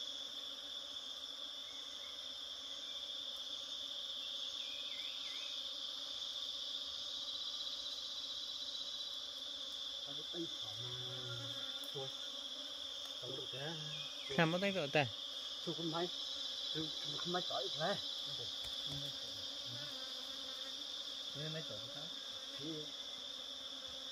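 Steady, shrill chorus of jungle insects, one high continuous tone. A few brief, louder sounds break in around the middle.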